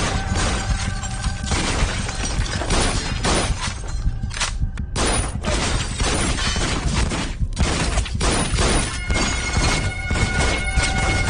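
Film shootout sound: repeated gunshots, with bullets smashing and shattering into walls, glass and furnishings, over a music score.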